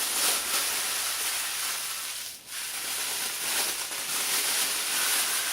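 A steady hissing noise that dips briefly a little over two seconds in.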